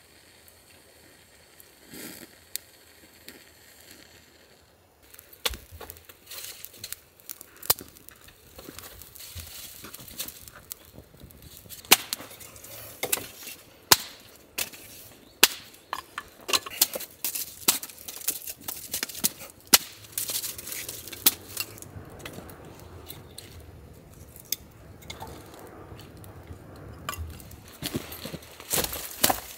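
Dry twig fire crackling. Irregular sharp pops and snaps start about five seconds in and come thicker later on.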